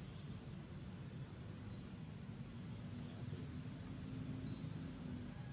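Outdoor ambience: a low rumble with faint, short high-pitched chirps scattered through it, and a steady low hum that comes in about two seconds in.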